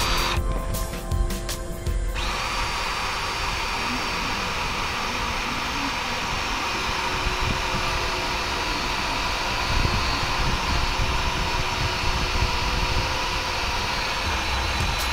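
Cordless drill with a thin bit, about 4 mm, drilling into a sailboat's masthead fitting. It gives a few short trigger bursts, then about two seconds in it runs steadily with a high whine until near the end.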